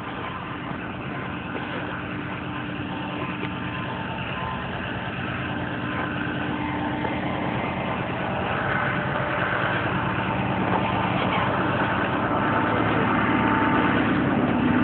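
A motor vehicle engine running steadily with street noise, growing gradually louder as it approaches.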